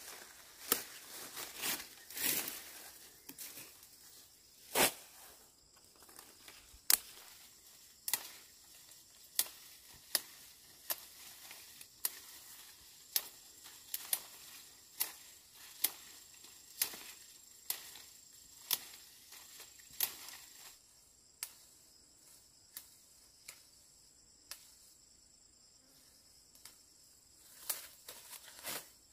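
Sharp clicks or snaps at irregular intervals, about one a second, thinning out past the middle. A faint steady insect drone runs beneath them.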